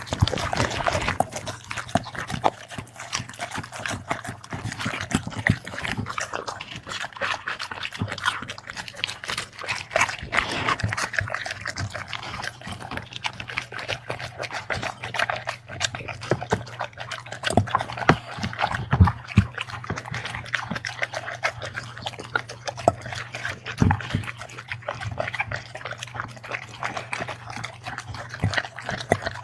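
A dog eating its meal, chewing and licking with many quick, irregular wet smacks, over a steady low hum.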